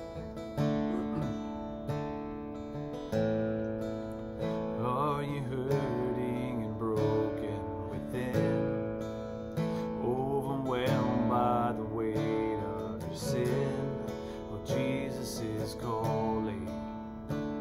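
Dreadnought acoustic guitar strummed in steady chords in the key of A, with a man singing in phrases over it.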